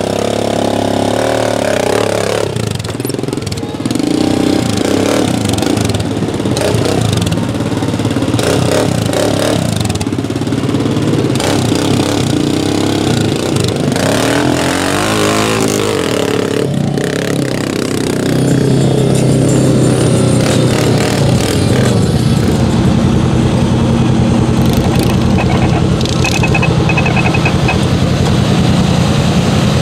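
ATV engine revving and easing off again and again as it works through deep mud. About two-thirds of the way through, a steadier, louder engine drone takes over.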